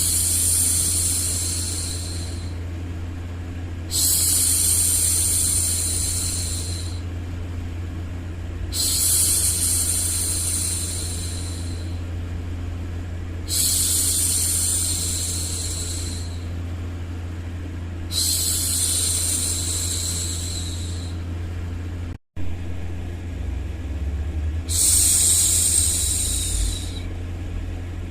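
A woman's voice hushing "shhh" over and over: six long shushes, each two to three seconds, about every four to five seconds, over a steady low-pitched white-noise hum. The sound cuts out for a split second about two-thirds of the way through.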